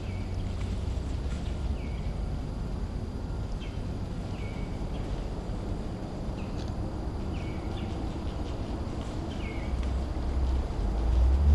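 A bird giving short, falling chirps every second or two over a steady low rumble. The rumble grows louder near the end.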